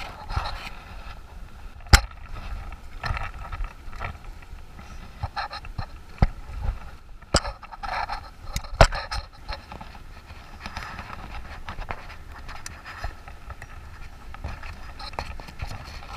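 Handling noise from a fly rod and landing net close to the microphone: rustling and scraping broken by several sharp knocks, the loudest about two seconds in and again near nine seconds.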